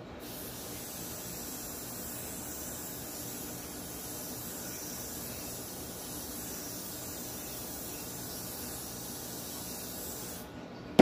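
Aerosol hairspray (Got2b Glued freeze spray) hissing out in one long steady spray onto a wig cap to glue it flat, stopping shortly before the end. Right at the end comes one sharp knock, louder than the spray.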